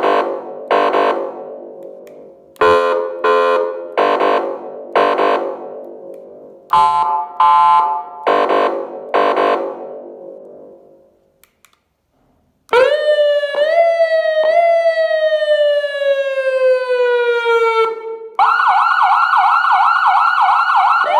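Electronic alarm siren speaker running through its built-in tones. First comes a series of chime-like strikes that ring and fade. After a short pause comes a long siren tone that falls slowly in pitch. Near the end it switches to a rapid warbling siren.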